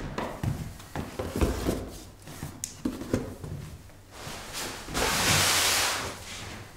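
Footsteps and light knocks on a bare floor. About five seconds in, a loud swish lasting a little over a second as a blanket is moved.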